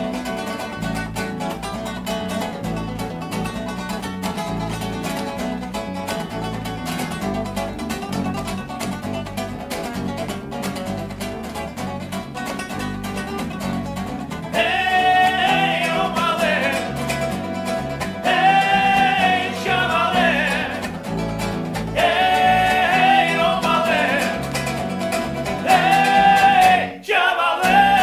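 Band music of acoustic guitars strumming over an electric bass, instrumental for the first half. About halfway a man's voice comes in singing a melody in phrases with vibrato, and the music breaks off briefly just before the end.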